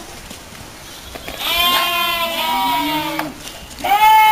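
Goats bleating: a long bleat starting about a second in, then a second, louder bleat near the end.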